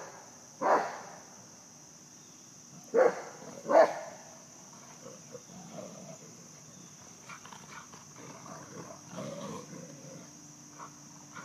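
Rottweilers barking during play: three sharp barks in the first four seconds, the last two close together, then softer, irregular noises.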